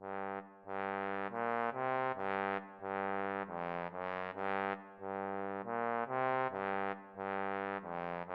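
Music: a brass-sounding phrase of held chords, one after another about every half second.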